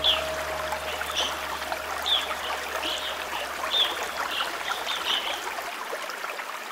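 Water trickling in a stream, with a bird giving short descending chirps about once a second that stop about five seconds in.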